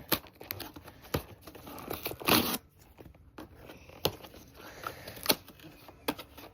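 Plastic packaging of mochi ice cream being torn open and crinkled: sharp crackles scattered throughout, with one longer rip about two and a half seconds in.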